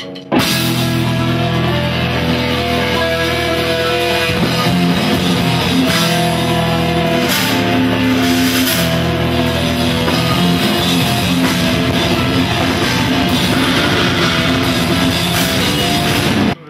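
Metal band playing live together: distorted electric guitars over a drum kit, loud and dense, starting together just after the start and stopping abruptly near the end.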